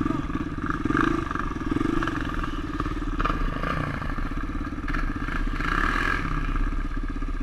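Honda XR350 dirt bike's single-cylinder four-stroke engine running under way, with two throttle blips in the first couple of seconds, then a steadier pull.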